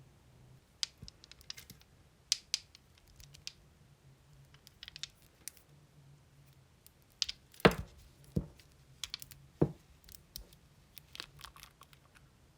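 Irregular light clicks and taps of small hard objects being handled, with a few louder knocks a little after halfway.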